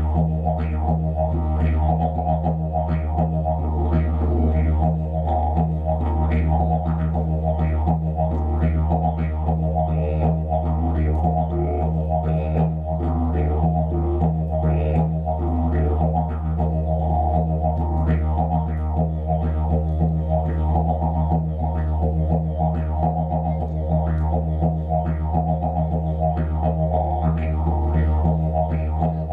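Didgeridoo played live: a steady low drone held without a break, driven by a continuous rhythm of short accents and shifting overtones.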